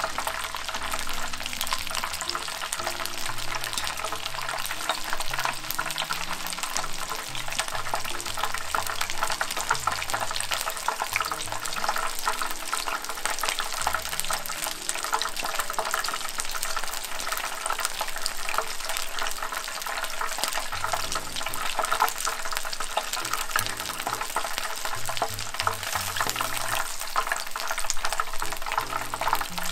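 Battered prawns deep-frying as tempura in hot oil: a steady, dense crackle and sizzle of the batter cooking.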